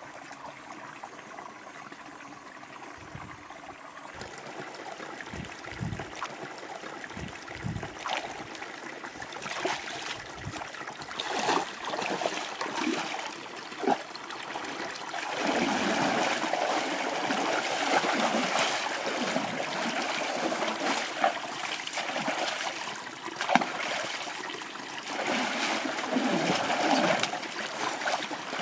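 Water splashing as a person wades into a shallow stream and bathes, scooping and throwing water over the body. A few soft low thuds come first; the splashing starts several seconds in and becomes heavier and near-continuous about halfway through.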